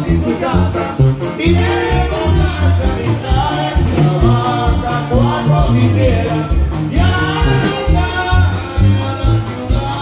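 Loud live norteño dance music: a steady bass beat under melody lines.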